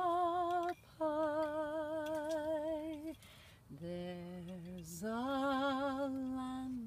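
A woman singing slow, long-held notes with a steady vibrato, unaccompanied. There are four sustained notes with short breaks between them: the third is lower, and the last swells upward and holds.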